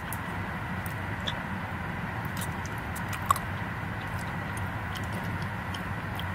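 Steady low hum inside a car cabin, with faint clicks and mouth sounds of someone chewing a mouthful of gummy edibles, and one sharp click about three seconds in.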